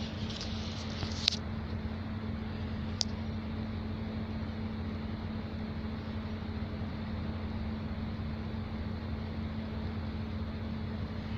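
Steady low machine hum with a constant drone, and two sharp clicks, one about a second in and another about three seconds in.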